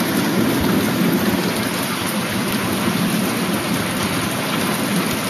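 Heavy rain mixed with marble-sized hail pelting deck boards, plants and the ground: a dense, steady hiss that does not let up.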